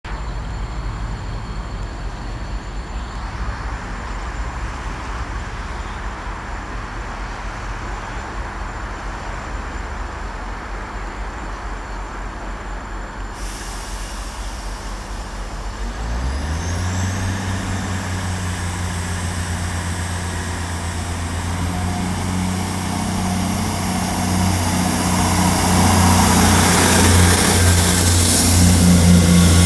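Class 158 diesel multiple unit's underfloor diesel engines idling at the platform, then opening up about sixteen seconds in as the train pulls away. The engine note rises and grows louder as the cars accelerate past.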